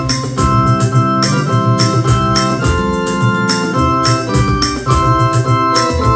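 Hymn played on an electronic keyboard: held, organ-like chords that change every second or so over a moving bass line, with a regular beat.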